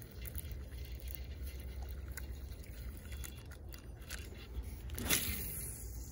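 Footsteps scraping and crunching along a dry, grassy pond bank over a steady low rumble, with one louder scrape about five seconds in.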